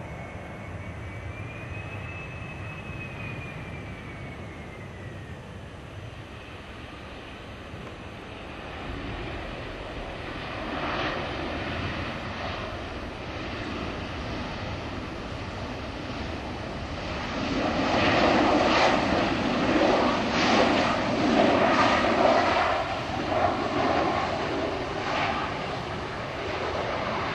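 Boeing 737-300 airliner's CFM56 jet engines during landing and rollout. A whine rises slightly and then falls away in the first few seconds. A louder rushing engine noise then builds and is loudest about two-thirds of the way through.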